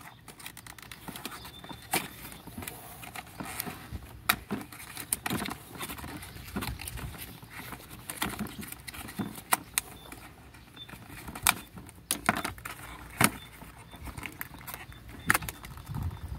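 Cardboard packaging and a plastic toy rustling, scraping and knocking as hands work the toy free of its box insert, with scattered sharp clicks throughout.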